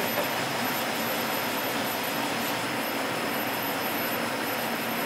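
Steady, even rush of air from kitchen ventilation fans, with a faint high whine.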